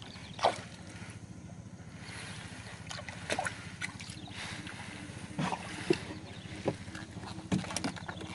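Fishing line hauled hand over hand over the side of a small boat, with a few irregular splashes, drips and knocks, over a steady low hum.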